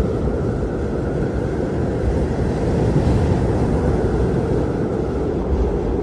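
Blizzard wind blowing steadily as a deep, low rush, with a faint higher whistle in the first couple of seconds.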